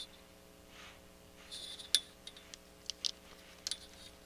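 Multimeter probe tips clicking against transistor leads on a circuit board while diode drops are measured. A cluster of small, sharp clicks starts about a second and a half in, the loudest about two seconds in, over a faint steady hum.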